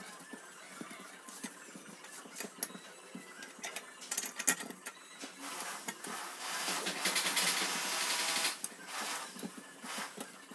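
Cloth rubbing hard against a brass oil lamp as it is hand-polished, with scattered small clicks and knocks of the metal at first, then a fast, sustained scrubbing rasp from about halfway through.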